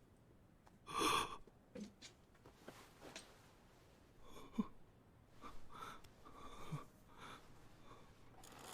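Faint breathing: a sharp breath or gasp about a second in, then softer breathy sounds in the middle.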